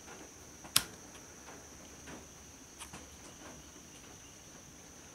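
Fluke 18B+ multimeter's rotary selector dial clicking as it is turned to a new range: one sharp click about a second in, then a few fainter clicks, over a faint steady high-pitched tone.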